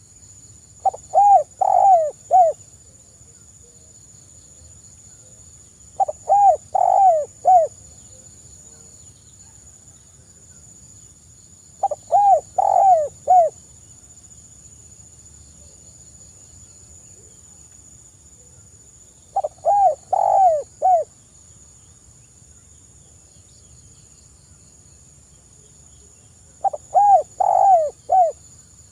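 Spotted dove cooing, its phrase given five times: each a quick run of four or five coos lasting about a second and a half, repeating roughly every six seconds. A steady high insect trill runs underneath.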